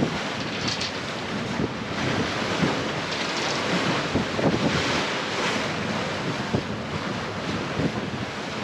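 Wind buffeting the microphone over the wash of sea water around a sailing catamaran under way, in irregular gusts.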